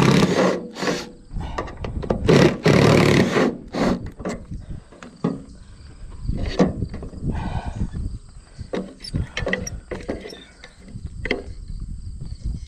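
Handling noise close to the microphone: loud rustles and bumps for the first few seconds, then scattered clicks and taps as a caulking gun is squeezed to lay sealant on the steel roof ridge.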